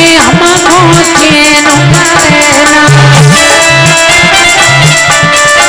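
Indian folk devotional music: a drum beat with rattling percussion under a gliding melody line, without sung words.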